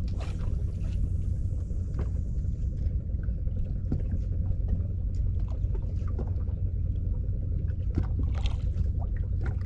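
Small outrigger fishing boat's engine running steadily, a low rumble, with a few faint clicks.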